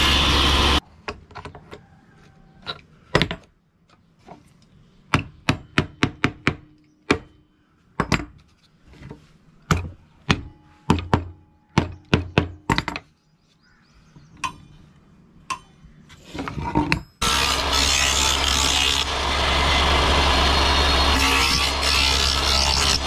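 Table saw running for about a second, cut off abruptly. Then a hammer driving small nails into thin scrap-wood pieces: sharp knocks, many in quick runs. The saw runs again near the end as a plank is fed to the blade.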